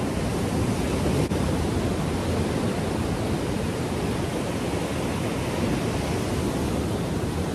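Rough sea surf breaking on the shore: a steady wash of noise.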